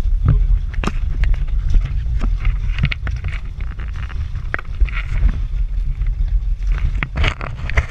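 Steady low rumble of wind buffeting the microphone on a small boat at sea, with scattered sharp clicks and knocks from the angler handling the rod and reel.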